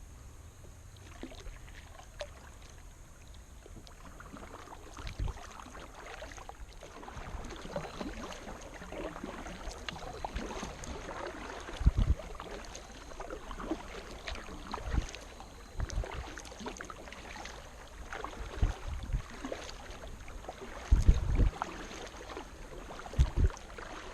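Kayak paddling: the paddle blades dip and pull through the water with steady splashing and dripping, and occasional short low thumps.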